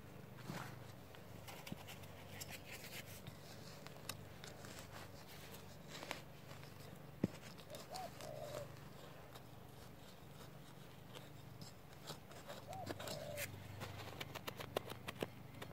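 Hand trowel and gloved hand scraping and digging through loose garden soil around sweet potato roots, with scattered scratches and small clicks that come thicker near the end. A faint short call sounds twice, about halfway through and again a few seconds later.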